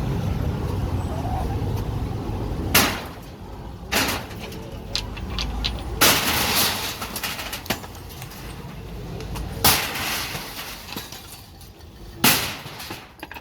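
Demolition work: five loud sharp bangs a second or few apart, the third trailing into a clatter, with a low vehicle engine rumble during the first few seconds.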